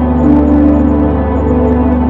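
Ambient music: sustained organ-like drone with slow, held notes over a steady deep bass.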